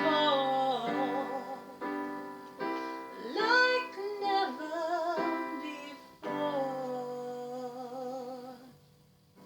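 A woman singing with piano accompaniment. Near the end she holds one long note with vibrato over a piano chord, and both die away about nine seconds in.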